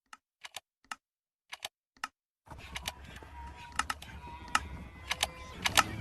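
Irregular sharp clicks, a few each second, at first on silence. About two and a half seconds in, a low background noise with a faint steady tone starts under them.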